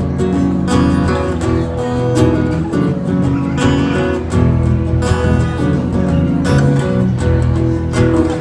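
Strummed acoustic guitar playing a song's accompaniment between sung lines, with a steady rhythm and a bass underneath.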